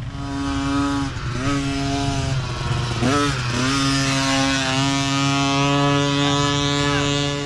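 Mini dirt bike engines revving hard as riders climb past, the throttle briefly chopped and picked up again about a second in, near two and a half seconds and around three seconds, with a second, lower engine running underneath.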